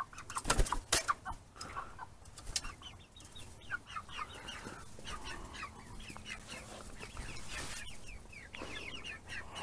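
A flock of young chickens clucking and peeping continuously in short, quickly falling calls, with a few sharp knocks about a second in.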